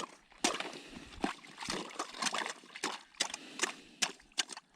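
Irregular sharp knocks and crunches, several a second, with slushy splashing sounds among them.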